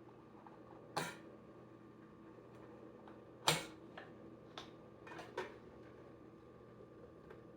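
A few scattered sharp knocks and clicks of hard objects being handled, the loudest about three and a half seconds in, over a faint steady hum.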